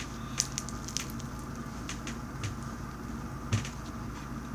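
Slime being squished and handled by hand, giving a few faint, scattered sticky clicks and pops.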